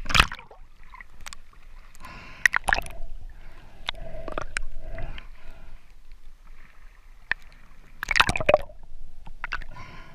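Water sloshing and gurgling around a camera taken from the surface to just under it, with a splash right at the start, many scattered sharp clicks, and a louder burst of splashing about eight seconds in.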